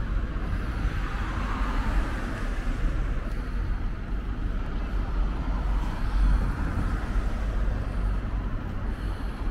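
City road traffic: a steady low rumble with the tyre noise of passing cars.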